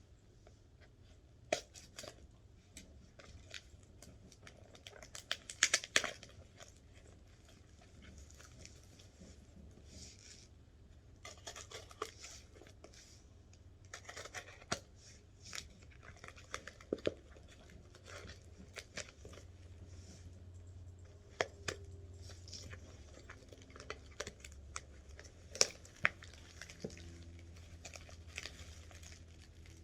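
Packing material being crumpled and torn while a box is unpacked, with irregular rustling patches and scattered sharp clicks and knocks, loudest about six seconds in.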